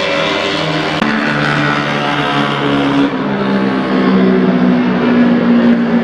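Engines of vintage racing motorcycles, machines built up to 1972, running on a race track, more than one bike heard at once. Their engine notes shift in pitch as they change speed, and a new engine note comes in about a second in.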